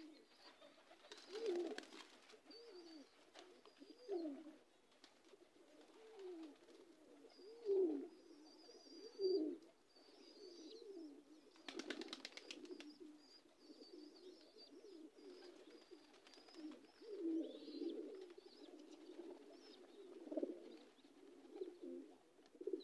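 Domestic high flyer pigeons cooing, a string of short low coos spread through, with faint high bird chirps above them.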